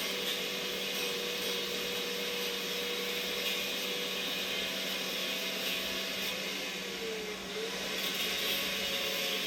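Heavy power tool with a cut-off wheel (a "death wheel") running and grinding into the steel of a chainsaw bar to open up its mounting slot, with a steady motor whine over a grinding hiss. The motor's pitch sags briefly about seven seconds in as the wheel is pushed into the metal, then picks back up.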